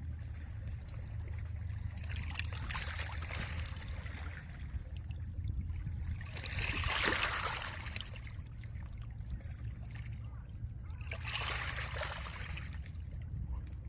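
Small lake waves washing onto a pebble shore: three swells of rushing water that rise and fade, the loudest in the middle, over a steady low rumble.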